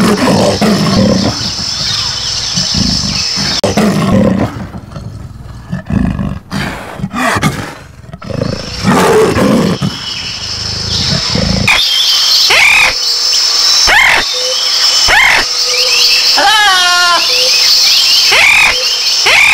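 A leopard growling and roaring in rough, low strokes. About twelve seconds in, a parrot takes over with a string of sharp, separate squawks, one of them wavering, over a steady high background.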